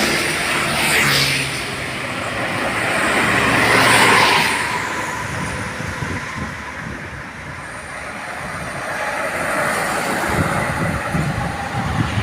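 Road traffic passing close by at speed: engine and tyre roar swelling as a vehicle sweeps past about four seconds in, then easing to a steadier traffic noise.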